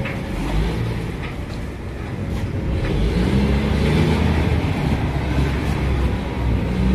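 Boat engine running with a low rumble, growing louder about three seconds in as it is throttled up.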